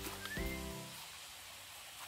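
Background music, a short melodic phrase, stops less than a second in, leaving only a faint steady hiss.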